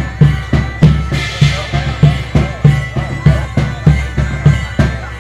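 Medieval folk music played live: drums beating a steady rhythm under sustained droning bagpipe tones.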